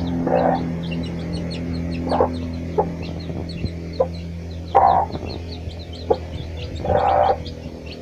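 Domestic hen clucking in four short calls about two seconds apart, over the constant high, quick peeping of her chicks while they forage.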